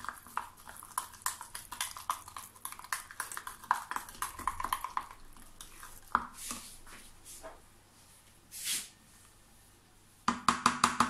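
Metal spoon stirring and clicking rapidly against the sides of a small plastic cup, mixing citric acid into chestnut purée. Near the end a quick burst of louder clicks.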